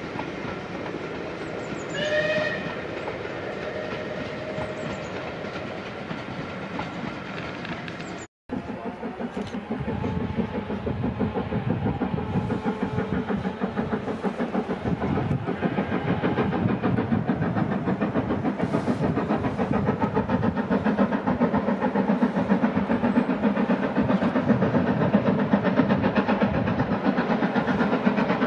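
A steam train passing with its coaches rattling over the rail joints, and a short whistle about two seconds in. After a sudden cut, a steam locomotive approaches, its rapid exhaust beats growing steadily louder.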